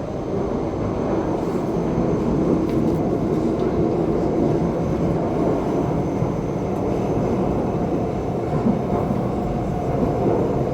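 Steady rumble and rushing noise of a Taiwan High Speed Rail train running at speed, heard in the gangway between two cars, with a faint high whine over it.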